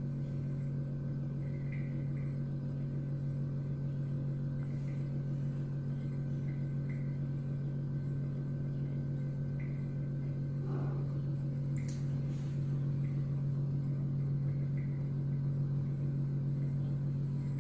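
A steady low machine hum, with a few faint ticks above it.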